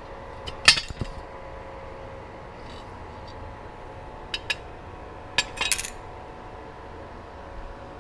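Sharp metallic clicks and clinks of steel tools and rifle parts being handled, a few at irregular intervals with short ringing, the loudest just under a second in and near six seconds, over a steady faint hum.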